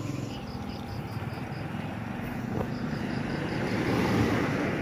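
A car driving slowly past close by: a low engine hum and tyre noise that grow louder toward the end. Insects chirp in quick, evenly spaced pulses over it.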